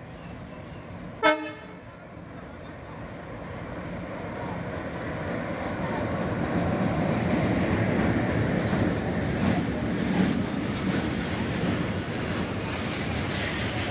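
A diesel locomotive hauling a long freight train of covered wagons passes close by. A short, sharp horn toot sounds about a second in, then the noise of the engine and the rolling wagons swells over several seconds and holds steady as the wagons go past.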